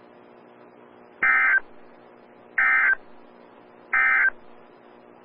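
NOAA Weather Radio SAME digital data tones: three short, identical bursts about a second apart, the End-of-Message code that closes the weekly alert test, over a faint steady hum.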